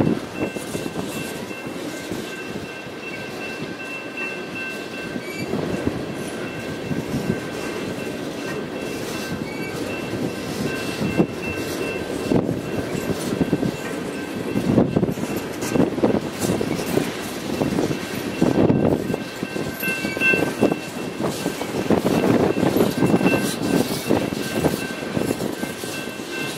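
Ballast hopper cars of a rock train rolling past, wheels clacking over rail joints in irregular clusters over a steady rumble, with a faint steady high tone throughout.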